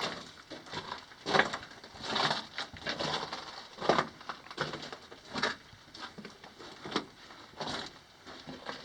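Footsteps on loose gravel and rock over hardpan, irregular steps about one or two a second, with small stones shifting underfoot, inside an inclined mine shaft.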